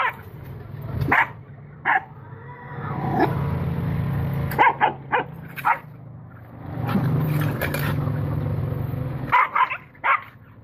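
A dog barking and yelping in short sharp bursts, in scattered groups, with two long stretches of low steady rumbling between them.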